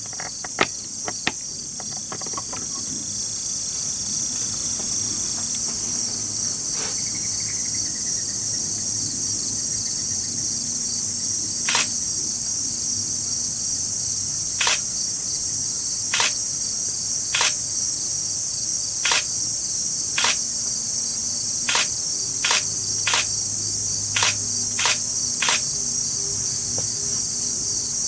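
A steady, high-pitched chorus of field insects trilling without pause. About a dozen short, sharp clicks start around the middle and come irregularly, about a second apart.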